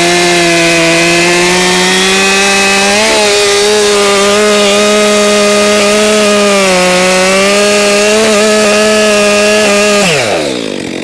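Chainsaw running at full throttle, cutting through a big pine log, its pitch sagging a little at times under load. About ten seconds in, the throttle is let off and the engine winds down quickly.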